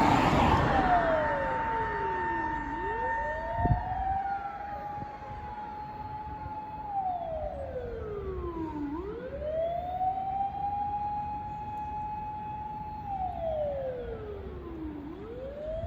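Ambulance motor siren wailing. It holds a high steady tone, winds down over about two seconds, then spins quickly back up to pitch, three times in all, growing fainter. A single sharp thump about four seconds in.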